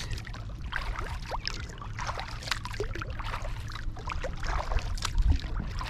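Kayak paddle strokes through lake water: small irregular splashes, drips and trickles from the paddle blades.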